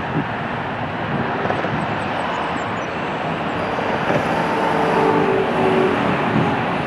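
Jet airliner engines running: a steady rushing noise that swells slightly, with a faint whine, from about four to six seconds in.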